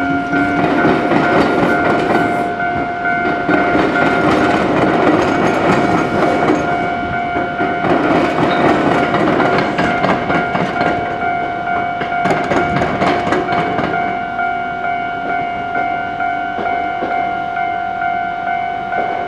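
Iyo Railway suburban train passing over the diamond crossing with the tram line, its wheels clattering over the crossing rails, while the level-crossing warning bell rings steadily. The clatter thins out in the last few seconds, leaving the bell.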